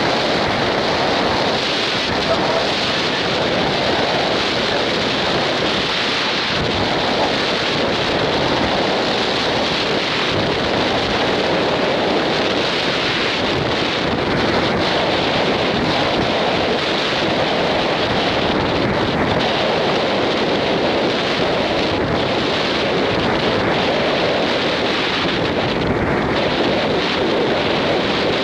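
Wind buffeting the microphone over the rush of sea water along the hull of a passenger ship under way: a steady, loud rushing noise with no breaks.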